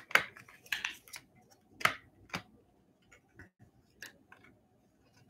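Old cardboard baseball cards from a 1954 Bowman pack being handled and slid apart by hand: a scattering of sharp clicks and light scrapes of card stock. The loudest come near the start and about two seconds in.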